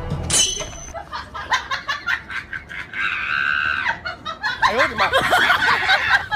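A woman laughing hard in rapid bursts, with a long, high-pitched held squeal about three seconds in.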